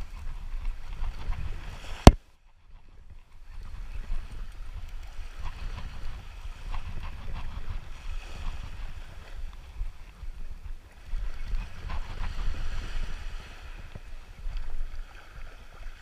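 Wind buffeting the microphone as a steady low rumble, with one sharp knock about two seconds in, the loudest moment, and a brief drop to near quiet right after it.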